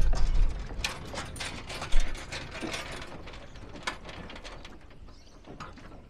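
Loose gear rattling and clicking in the back of a ute as it rolls slowly over rough ground, with irregular sharp clicks that thin out towards the end. A low vehicle rumble fades away in the first half-second.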